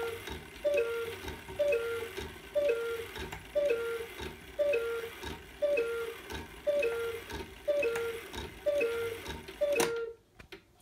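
Antique cuckoo clock calling the hour: its bellows-and-pipe cuckoo sounds a two-note call, a higher note then a lower one, about once a second, some ten times over. The calls stop about ten seconds in.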